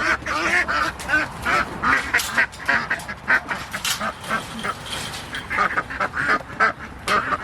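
A flock of domestic ducks quacking, many short calls overlapping in quick succession.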